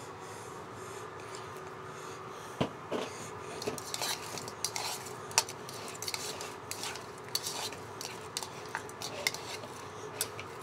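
Metal tongs turning sauce-coated chicken drumsticks in a plastic bowl: irregular clacks and knocks of the tongs against the bowl and the bones, starting about two and a half seconds in, over a faint steady hum.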